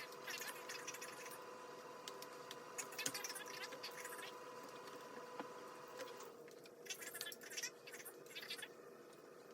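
Faint scratching and rustling in several short bursts, with a steady faint hum that drops away about six seconds in.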